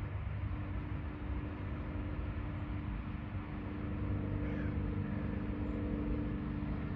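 A machine or engine running steadily: a low rumble with a constant hum.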